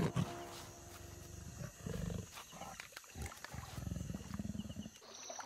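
A big cat growling: a short loud burst at the start, then several low, rough growls over the next few seconds.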